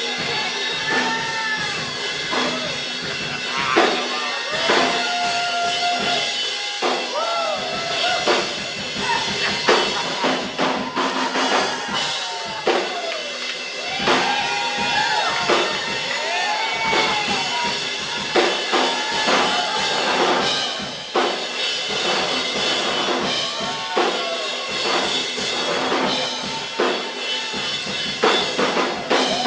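Live worship music: a drum kit playing a rock-style beat under a lead instrument playing a melody that slides and bends in pitch. It is played to accompany prayer for healing.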